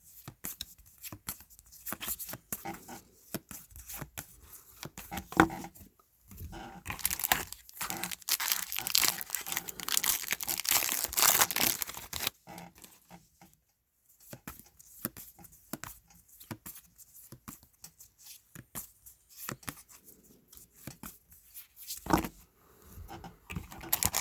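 Trading card packs being torn open and their wrappers crinkled, with cards handled and flicked through in between. The longest burst of tearing and crinkling comes about a third of the way in.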